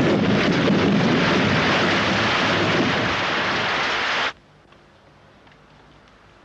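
A loud, steady rushing noise that cuts off suddenly about four seconds in, leaving only a faint low hum.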